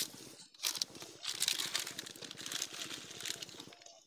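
A plastic snack packet crinkling and crackling as it is handled, in dense irregular rustles.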